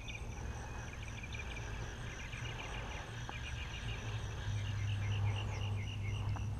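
Pond-side outdoor ambience: repeated short chirping trills in small groups over a thin, steady high tone, with a low steady hum underneath that grows louder about halfway through.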